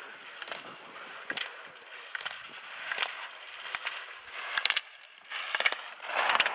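Slalom skis scraping and carving on hard-packed snow turn after turn, with a sharp knock about once a turn as the gate poles are struck. The scraping is loudest near the end as the skier passes close.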